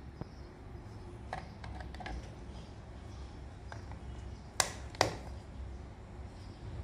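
Hands handling a USB cable and a plastic plug-in power strip: light knocks and rustling, then two sharp plastic clicks less than half a second apart about four and a half seconds in.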